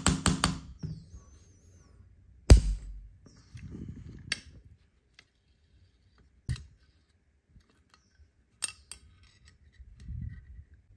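Small steel tattoo-machine parts and an Allen key clicking and knocking against a cast-metal vise, a few scattered sharp strikes with quiet handling between them; the loudest knock comes about two and a half seconds in. A fast, even ticking over a steady hum stops within the first second.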